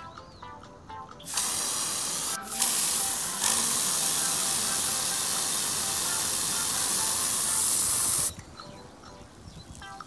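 Aerosol insecticide spray can hissing as it is sprayed at a beehive: a short burst about a second in, then a long continuous spray of about six seconds that stops suddenly.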